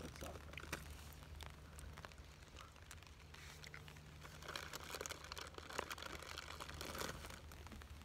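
Light rain, scattered drops faintly ticking on a tarp overhead at an irregular pace, with a patch of rustling about halfway through.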